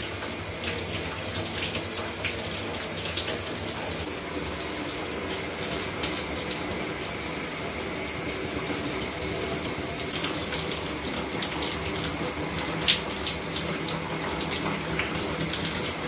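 Bathroom shower running in a steady spray, water splashing over a baby cockatiel held under it, with occasional sharper splashes.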